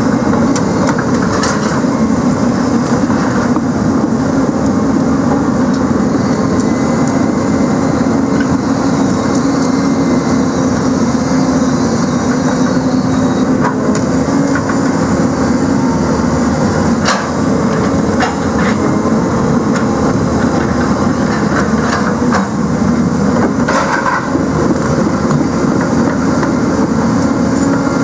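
Heavy diesel engine of a grapple-saw log-handling machine running steadily under hydraulic work, with a few sharp knocks and cracks of logs and branches being handled by the grapples.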